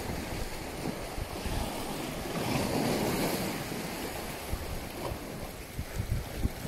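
Wind buffeting the microphone in irregular low gusts over the steady wash of choppy sea waves.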